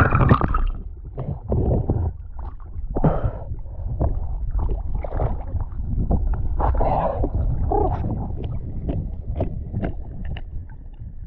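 Water sloshing and splashing around a camera bobbing at the water's surface, over a constant low rumble of water and wind on the microphone. Right at the start, a loud burst of bubbling as the camera comes up from underwater.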